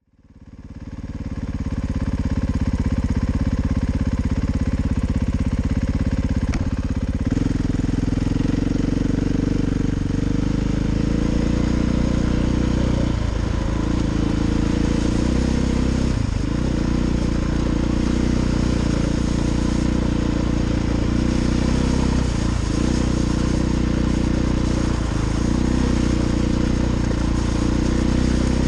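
KTM 500 EXC single-cylinder four-stroke dirt bike engine running under way, fading in over the first second or so. Its note is steady, changing pitch once early on and dipping briefly a few times as the throttle comes off, with a hiss of wind and riding noise over it.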